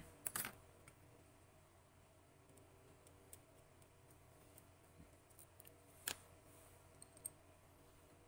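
A few faint, sharp clicks of a small screwdriver working the rotor screw of a Seiko automatic watch movement, two close together at the start and the clearest about six seconds in, over near silence.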